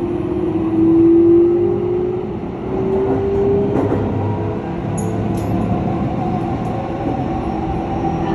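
Keikyu 1000-series train (set 1307) running, with a strong hum that rises gently in pitch over the first few seconds and then holds steadier and fainter over the rumble of the train. The hum is an abnormal noise, of a different kind from the one on car No. 1.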